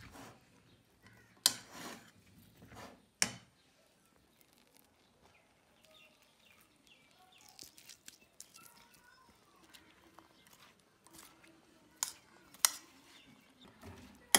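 Metal spoon clinking against a stainless steel bowl while stirring chickpeas and chopped onion: two sharp clinks in the first few seconds and two more near the end, with quieter spoon-and-food sounds between.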